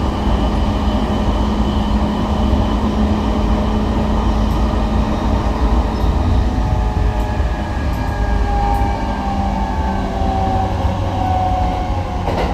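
Inside a JR Nanbu Line electric train: a steady rumble of wheels and running gear as the train runs toward its next stop. From about eight seconds in, a whine slowly falls in pitch as the train slows, and a sharp click comes at the very end.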